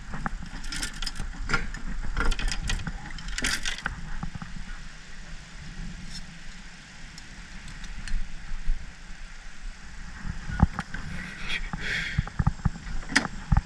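Handling noise in a small aluminium jon boat: scattered clicks, knocks and rattles of gear and a tool being picked up and used, densest in the first few seconds and again near the end, over a steady low rumble.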